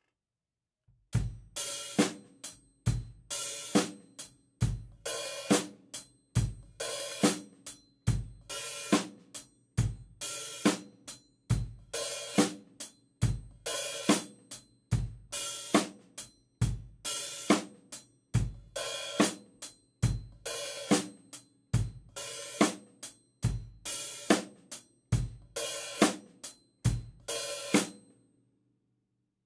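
Acoustic drum kit playing a steady groove with hi-hat barks: the hi-hat is opened briefly with the left foot. On some barks it is barely lifted, giving a sizzle as the top and bottom cymbals still vibrate against each other. On others it is opened all the way for a brighter, open tone from the top cymbal alone. The playing starts about a second in and stops near the end.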